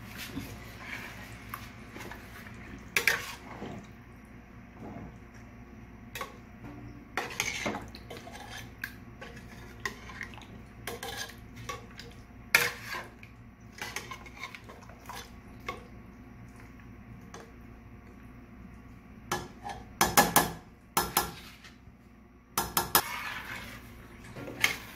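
Metal ladle scraping and clinking against a stainless-steel pot while pieces of chicken in thick curry are stirred: irregular knocks, with a quick run of clanks near the end.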